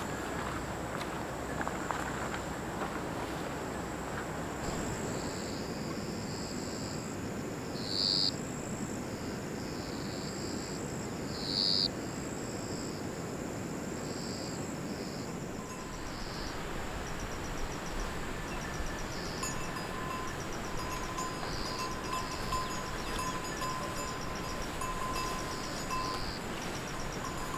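Forest insects: a high steady buzz with rapid chirping trains joining about halfway through, over a steady background hiss. Two louder calls stand out, about eight and twelve seconds in.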